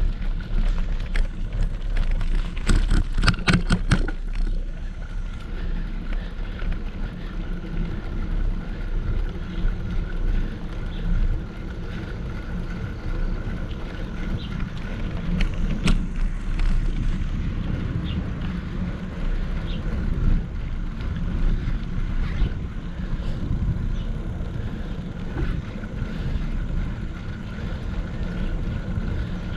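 Riding noise from a bicycle on the road, picked up by an action camera: wind rumbling on the microphone and tyre and road noise. There is a quick run of rattling clicks about three seconds in and a single sharp click near the middle.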